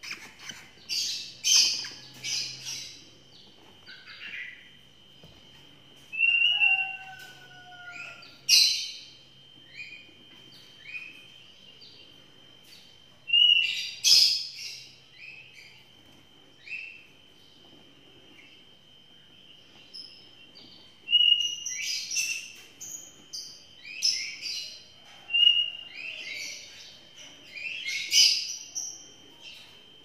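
Young lovebirds chirping and squawking in short, sharp high calls that come in clusters, with a quieter spell in the middle and a rapid run of calls near the end.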